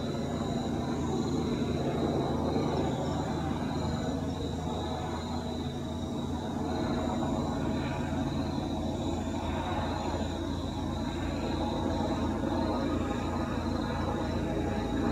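Helicopter flying nearby: a steady low drone of rotor and engine that swells slightly and eases off, with a thin steady high tone over it.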